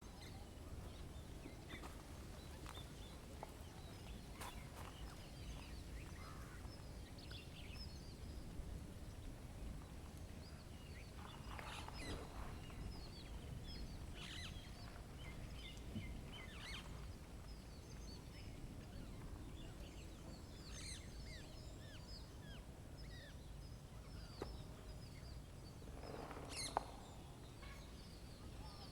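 Small birds chirping here and there over a steady low background rumble, with one sharp click near the end.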